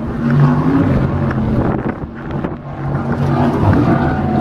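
Offshore racing powerboat engines running at speed across the water, a steady low droning hum that dips briefly about halfway through, with wind on the microphone.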